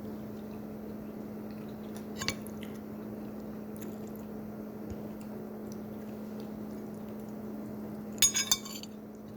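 Cutlery clinking against dishes at a meal: one clink a little over two seconds in and a quick run of clinks near the end, with faint chewing under a steady low hum.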